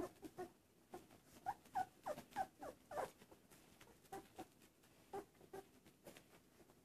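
Newborn golden retriever puppies squeaking faintly while nursing: short, high squeaks that drop in pitch, a quick run of them a second and a half to three seconds in, then a few more, spaced out.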